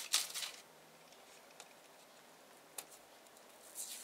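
Blue painter's tape being peeled off an aluminium sheet: a short tearing rip at the start, then a quiet stretch with a single tick, and fingers rustling at the tape's edge near the end.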